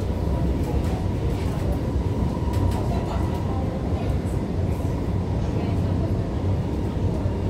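Alstom Movia R151 metro train running steadily at speed, heard inside the passenger cabin: a constant low rumble of wheels on rail with a faint steady whine above it.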